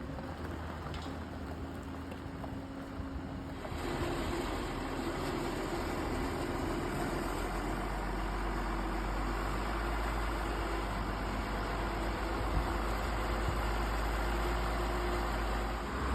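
Boat engine running steadily under a broad rushing noise of wind and water, which grows louder and fuller about four seconds in.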